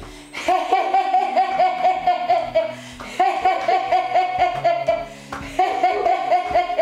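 A woman laughing heartily in rapid, even "ha-ha-ha" runs, three long runs with short breaks for breath about three and five seconds in. It is deliberate laughter-yoga laughing, chin raised to push stale air out of the lungs. Soft background music with low held notes plays underneath.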